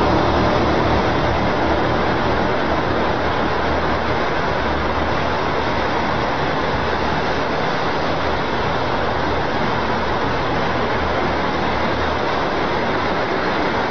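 A loud, steady noise with a low hum under it, unchanging throughout and cutting off suddenly at the end.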